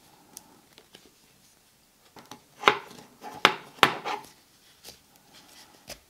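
Handling sounds as a braided nylon lanyard is fitted to an aluminium card wallet: three sharp clicks about halfway through, with fainter ticks and rubbing around them.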